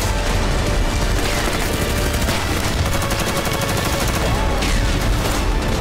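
Gunfire over dramatic background music with a heavy low rumble; a burst of rapid shots comes about two seconds in.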